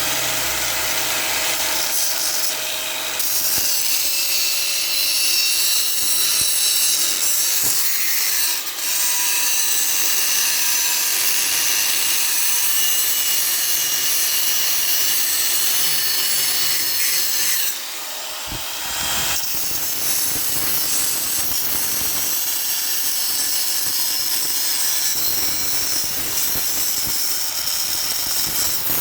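Stick-welding arc making a steady crackling hiss, broken briefly twice, once about a third of the way in and for about a second just past the middle.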